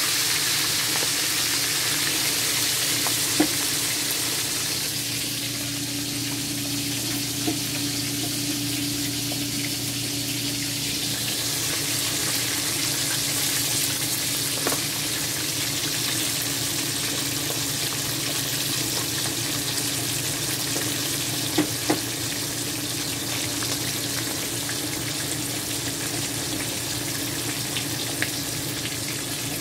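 Pompano frying in a pan of hot oil: a steady sizzle, with a few sharp pops of spattering oil.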